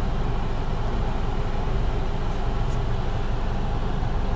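Steady low rumble of a car idling, heard from inside its cabin, with two faint clicks a little past halfway.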